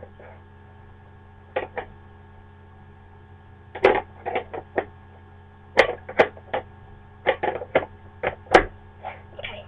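Plastic lid of a storage jar clicking and knocking as it is pressed and pushed down, refusing to seat back on. The clicks come irregularly in small clusters, about ten in all.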